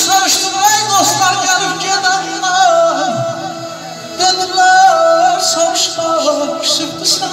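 Live Azerbaijani wedding music played through PA speakers: a male voice sings a wordless, ornamented melody into a microphone over a garmon (button accordion) and keyboard. A few sharp percussive strikes come in during the second half.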